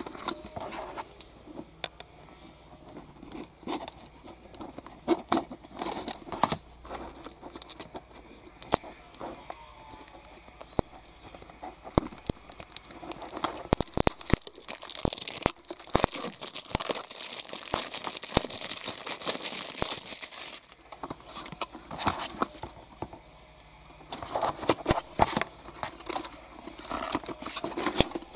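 Fingers handling a small cardboard collector's box, with repeated taps, clicks and scrapes on the card. Midway a clear tape seal is peeled off with a long tearing hiss lasting about seven seconds. Near the end the box is opened and the plastic display case slides out with more scraping and clicks.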